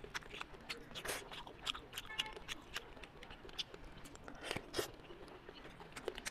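Close-miked eating sounds: soft wet chewing and lip smacks with irregular small clicks, as soft, cartilaginous braised ray is torn by hand and chewed.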